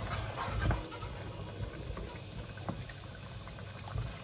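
Potatoes bubbling in a shallow pan of boiling water and olive oil, stirred with a wooden spoon that knocks lightly against the pan a few times. The water is boiling off before the potatoes begin to fry.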